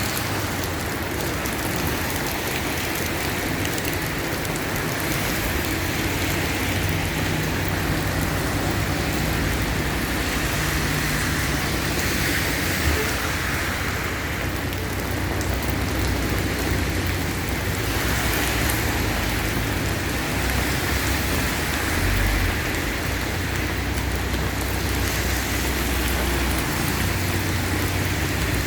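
Steady rain falling and pattering on surfaces, an even hiss with a faint low hum underneath.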